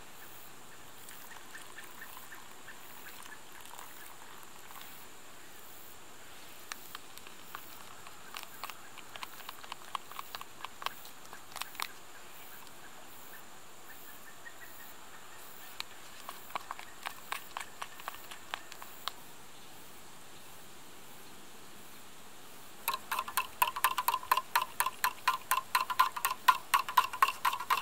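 A fork stirring instant mashed potatoes in a cup, giving soft, scattered clicks. Near the end, a utensil stirs fast in a stainless steel camping mug: a rapid run of louder metallic clinks, the loudest part.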